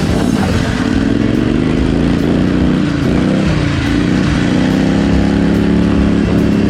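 Riding lawn mower engine running hard and revving: its pitch drops and climbs several times in the first half, then holds high and steady.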